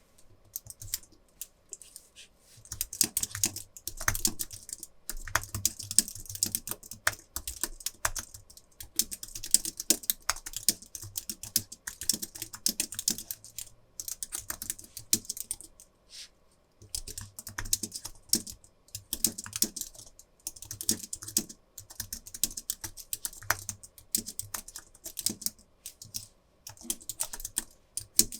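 Fast, heavy-handed typing on an Apple Magic Keyboard: a quick run of light, flat clicks from its low-travel scissor-switch keys, with a few short pauses.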